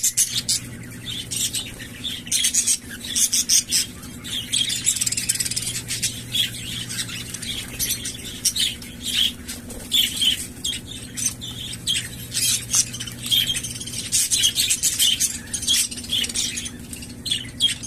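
A group of budgerigars chirping and chattering without pause, with wing flapping from birds bathing. A low steady hum runs underneath.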